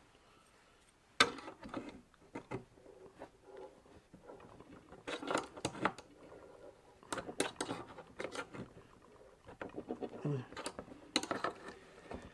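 An open-end spanner clicking and clinking on the steel nuts of a Brooks B66 saddle's spring frame as they are tightened, in short irregular clusters of sharp metal clicks with pauses between. The first second is quiet.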